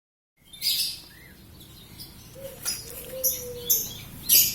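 Birds chirping: a run of short, high-pitched calls repeated every half second or so.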